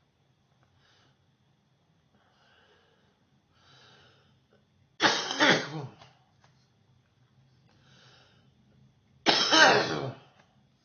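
A person coughing in two bouts about four seconds apart, each a double cough lasting about a second, with faint breaths before and between them.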